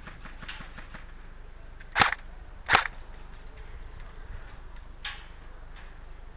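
Airsoft guns firing single shots: two loud sharp cracks about three quarters of a second apart, then a fainter one a couple of seconds later.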